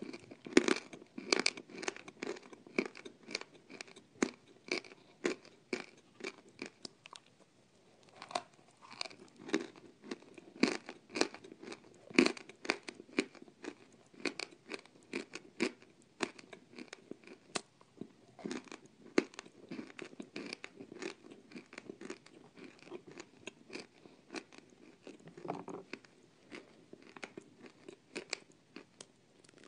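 Close-miked crunching and chewing of hard, dry, crumbly cookies: many sharp, irregular crunches a few times a second, with softer chewing between bites.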